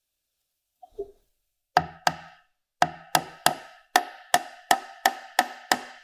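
Steel-headed hammer driving a glued wooden wedge into the end grain of a knob's tenon to lock the knob in place: about a dozen sharp strikes, each with a short ring. They start in pairs a little under two seconds in and settle to about three a second. A faint tap or two come about a second in as the wedge is set.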